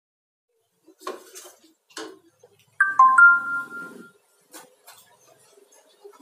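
A couple of light knocks of kitchen utensils, then metal cookware struck about three seconds in, ringing for about a second with several clear tones; the ring is the loudest sound. Faint small clicks follow.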